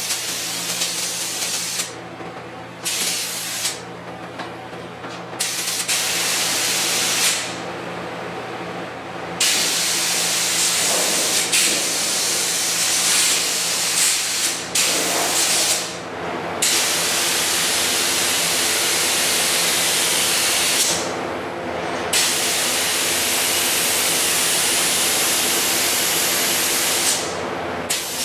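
Air spray gun hissing as it sprays epoxy primer onto car body panels. The hiss comes in long passes of several seconds, cut off by about six short pauses as the trigger is released. A steady low hum runs underneath.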